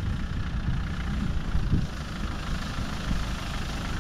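Land Rover Defender's engine running with a steady low rumble as the truck drives slowly at a low engine speed.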